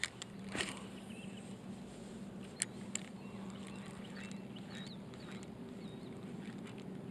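Spinning rod and reel worked through a jerkbait retrieve: a few sharp clicks in the first three seconds, then a faint steady whir of the reel being cranked. Short high chirps sound over it.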